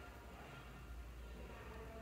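Quiet room tone: a faint steady low hum, with no distinct event.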